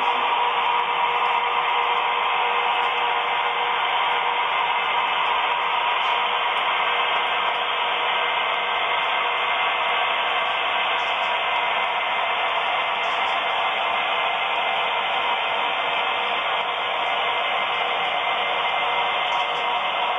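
HO scale model train running on the track, a steady whirring noise with a faint hum under it and no change in level.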